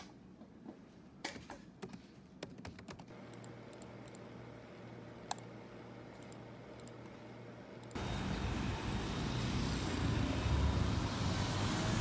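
Keys clicking on a laptop keyboard, scattered taps with a faint steady hum behind. About eight seconds in it gives way abruptly to louder street traffic noise with cars passing.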